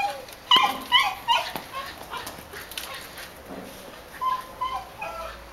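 Belgian Malinois puppy giving short, high whines and yips in quick succession, a flurry in the first two seconds and another about four seconds in.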